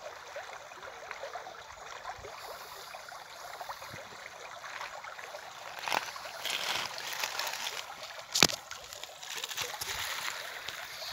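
River water running steadily, with splashes as water is scooped up by hand to wash the face: one about six seconds in and a sharper, louder one about eight seconds in.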